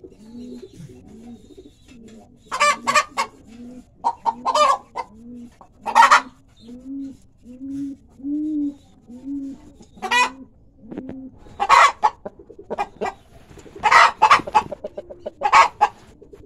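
A hen clucking in a steady run of low, evenly spaced notes, broken by several loud, harsh squawking calls.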